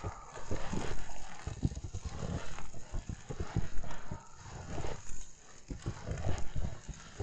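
Footsteps crunching through fresh snow at a steady walking pace.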